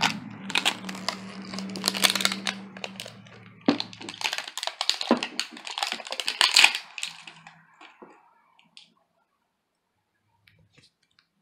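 Plastic packaging of a Smooshy Mushy squishy toy being handled and opened: a run of crackling, crinkling clicks that lasts about seven seconds, then stops. A low steady hum sits underneath for the first four seconds.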